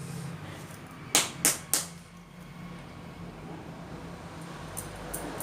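Three sharp clicks in quick succession about a second in, then a few fainter clicks near the end, over a low steady hum.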